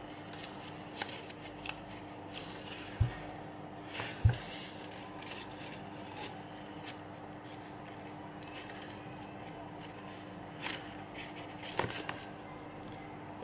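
Sheet of origami paper being folded and creased by hand on a table: scattered soft rustles and crinkles, with two dull thumps about three and four seconds in. A faint steady hum sits underneath.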